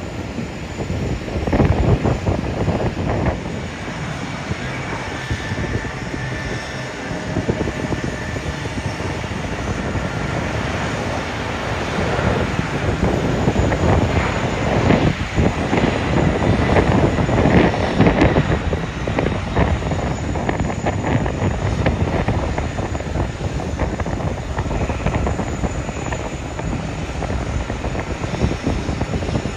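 Jet airliner engines rumbling as an aircraft passes, swelling to their loudest about halfway through and then easing off.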